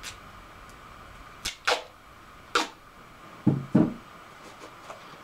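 Duct tape being pulled off the roll and torn in three quick rips, then two short, duller sounds about three and a half seconds in.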